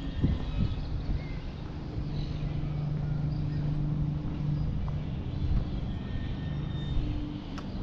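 Steady low hum of a motor vehicle's engine running nearby, with faint short high chirps above it.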